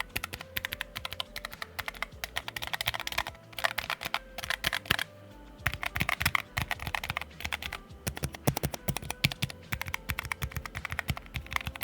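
Keys of a Keychron K0 Max low-profile numpad being typed on: rapid runs of clacking keystrokes, with a brief pause about five seconds in.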